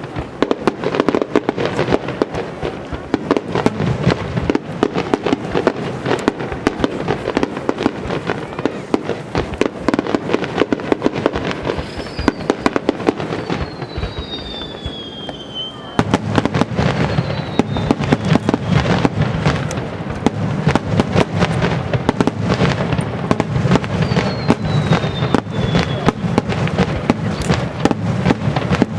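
A starmine firework barrage: aerial shells bursting in rapid succession, many cracks and bangs a second, with a few whistles falling in pitch around the middle and near the end. The barrage turns louder and heavier a little past halfway.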